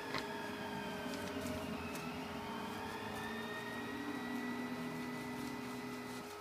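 Stepper motors of a delta 3D printer driving the arms as the nozzle carriage moves across the bed: a steady whine whose tones slide down and then rise slowly. There is one sharp click just after the start, and the motors stop shortly before the end.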